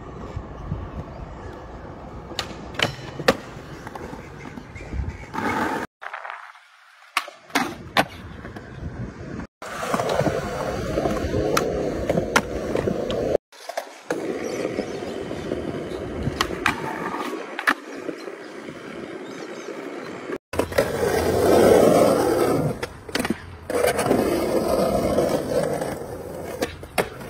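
Skateboard wheels rolling on concrete, with sharp clacks and knocks from the board popping and landing. It is a run of separate skate clips, so the rolling sound drops out and changes abruptly several times.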